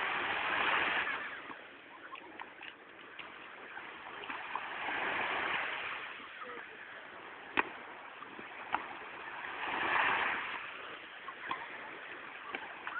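Sea waves washing onto the beach, swelling and fading about every five seconds, three times. A few sharp smacks of the ball being hit cut through, the loudest about halfway through.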